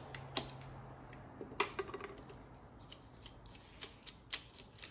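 Metal clicks of a socket and extension going onto the fuel-rail bolts, then a hand ratchet clicking about three times a second from about three seconds in as the bolts securing the fuel rail to the lower intake manifold are run in.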